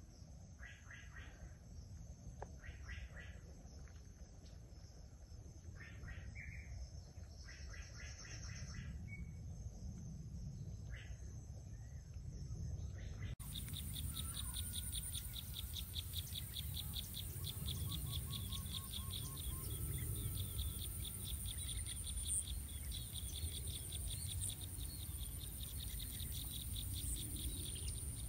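Outdoor ambience of birds and insects. For the first half, birds call in short groups of chirps. An abrupt cut about 13 seconds in leads to insects with a rapid high pulsing and a steady very high drone, with a few faint bird whistles and a low rumble underneath.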